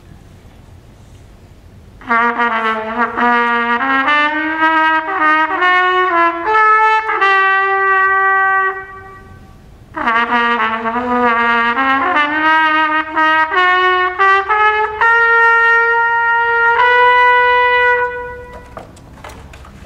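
Solo trumpet playing two rising runs of notes. The second run climbs higher than the first and ends on a long held high note.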